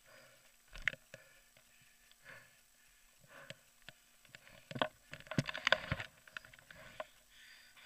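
Downhill mountain bike descending a rough dirt trail at speed, rattling and knocking: scattered clatters, with a dense run of knocks about five to six seconds in.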